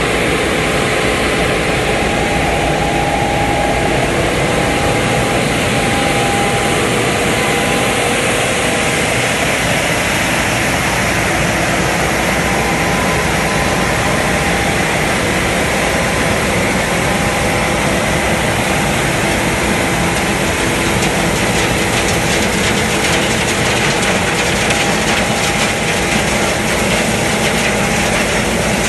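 Kademe 7 m³ truck-mounted road sweeper at work: its machinery runs steadily and loudly with a few held whining tones, while the rotating side brush scrubs grit along the kerb. A light, rapid ticking comes in during the second half.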